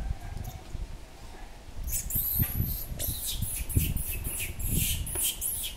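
Infant macaque giving a rapid series of short, high-pitched squeals, starting about two seconds in, over a low rumble.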